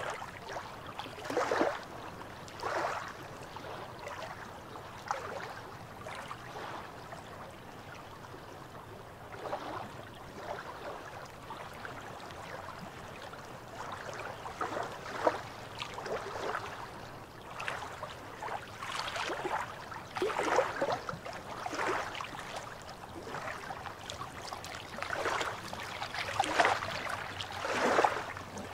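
Small sea waves lapping and splashing against shoreline rocks, in irregular swells every second or two over a steady low wash of water.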